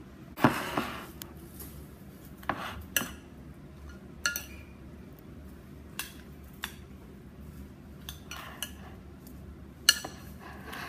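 Metal spoon clinking and scraping against a glass salad bowl as leafy greens are tossed, in irregular strokes. The loudest clinks come about half a second in and again near the end.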